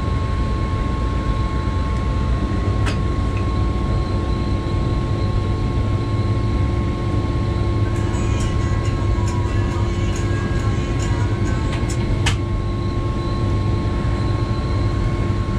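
CSR SD3 diesel locomotive running under way, heard from the cab: a steady engine drone with a constant whine over it. Sharp clicks come about three seconds in and again about twelve seconds in, with a run of lighter ticks between them.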